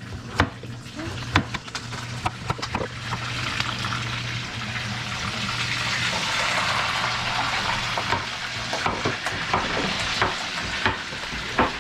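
Food sizzling in hot oil in a frying pan, the hiss swelling from about three seconds in, with scattered sharp clicks and knocks of a knife and utensils over a steady low hum.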